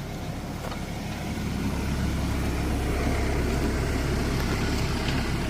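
Chevrolet S10 pickup's engine idling steadily.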